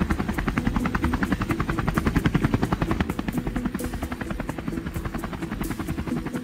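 Boeing Vertol CH-46 Sea Knight tandem-rotor helicopter lifting off: a fast, even beat of rotor blades over a steady turbine rumble.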